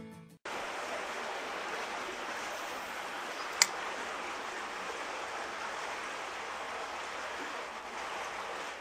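Steady rush of flowing creek water, with one sharp click about three and a half seconds in.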